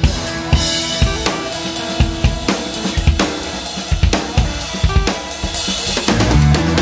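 Background music: a drum-driven rock track with a steady beat of kick, snare and cymbals, growing heavier with guitar near the end.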